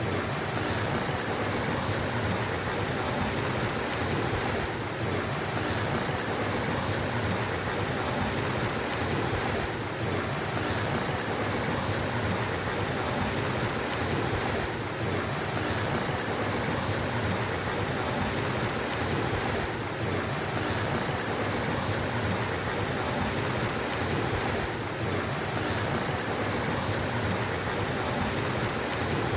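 Flowing water rushing steadily, a dense even noise, with a faint dip about every five seconds.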